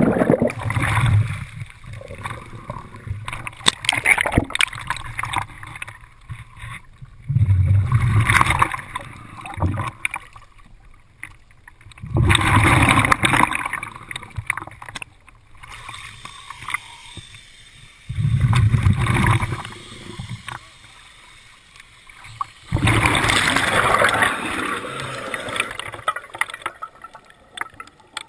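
Underwater breathing through a scuba regulator: five gurgling rushes of exhaled bubbles, about one every five seconds, with quieter water noise between them.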